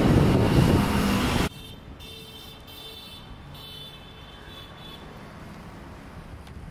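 Wind buffeting the microphone for about a second and a half, cutting off suddenly to a faint, steady outdoor traffic hum.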